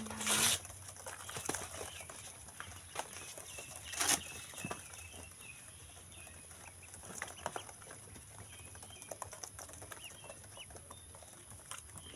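A brood of domestic ducklings peeping softly, many short high chirps scattered throughout. Two brief scratchy rustles cut in, one right at the start and one about four seconds in.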